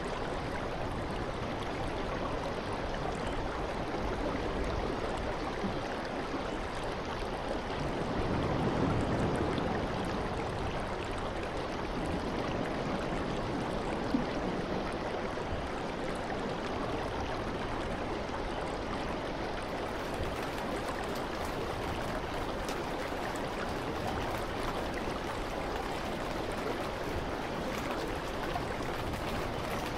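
Rough sea surf breaking over rocks: a steady rush of water noise that swells briefly about eight seconds in.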